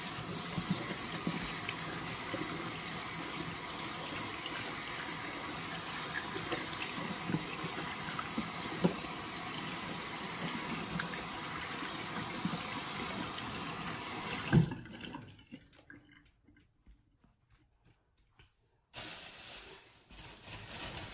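Tap water running into a sink while hands are washed under it, with small splashes. About fourteen seconds in there is a sharp knock and the water stops, leaving near silence for a few seconds before a quieter sound starts again near the end.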